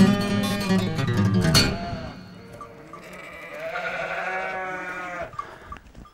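Acoustic guitar music ends with a final strum about a second and a half in. Then a sheep gives one long, wavering bleat.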